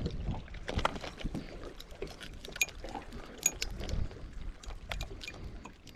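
Scattered light clicks and knocks of hands unhooking a needlefish from a soft-plastic lure aboard an inflatable skiff, over a low steady rumble.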